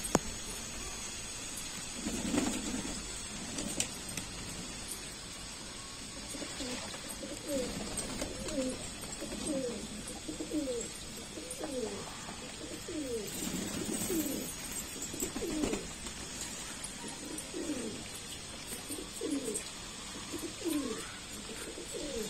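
Domestic pigeons cooing: many low, repeated falling coos from several birds, over a steady hiss of rain.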